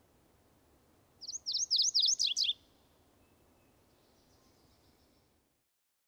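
Male MacGillivray's warbler singing its territorial song once: a quick run of about eight sharp, down-slurred whistled notes lasting about a second and a half, the last few notes lower.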